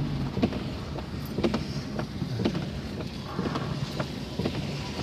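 Cabin noise inside a moving vehicle: a steady low engine and road rumble with scattered short clicks and knocks.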